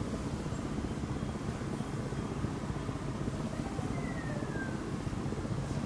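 Steady low rumble of background noise with no speech, with a faint thin falling whistle about four seconds in.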